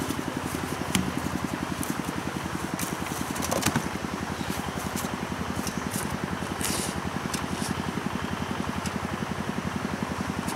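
Small single-cylinder petrol engine of a portable water pump idling with an even, rapid pulse. Two sharp knocks, about one and about four seconds in, come from the pump being handled.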